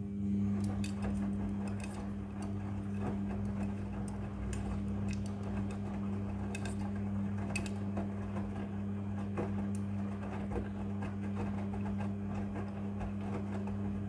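Midea front-loading washing machine running a wash tumble: the drum motor kicks in abruptly at the start and keeps up a steady electric hum. Clothes turn over in the drum with scattered light knocks and clicks.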